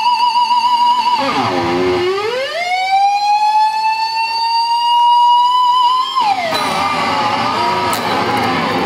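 Jackson Rhoads electric guitar with a Floyd Rose tremolo played through an amp: a held high note with vibrato is dived down with the whammy bar about a second in, pulled back up and held, then dropped again about six seconds in into looser, lower notes.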